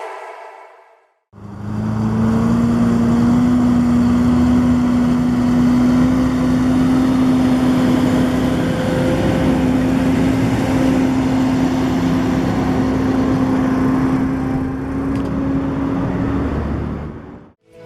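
Farm machinery engine running steadily at constant speed, with a steady hum and a mechanical rumble underneath.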